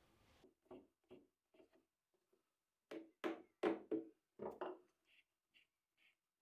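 Mallet striking a cabinet door's wooden frame to knock its glued joints closed. First come a few light taps, then about six harder blows in quick succession around the middle, then softer ticks near the end.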